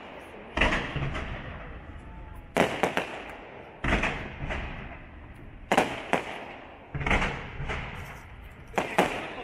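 Aerial fireworks shells bursting: a string of sharp bangs about every one to two seconds, some in quick pairs, each trailing off in an echo.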